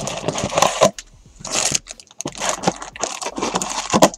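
Wrapped trading-card packs and their cardboard box being handled, a crinkling rustle with sharp clicks in three bursts as the packs are pulled out and set down.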